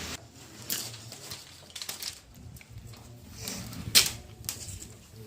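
Irregular clicks and knocks of packaging being handled during a refrigerator unboxing, with one sharp knock about four seconds in.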